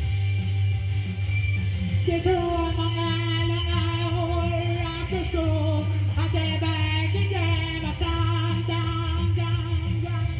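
Rock song: a man sings over electric guitar, his voice coming in about two seconds in, with a steady low bass and beat underneath.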